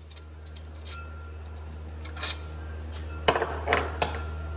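Metal clinks and clanks as the brake caliper and its loose hardware are handled on the steering knuckle. There are a few light clicks, then a cluster of sharper clanks a little past three seconds in, all over a steady low hum.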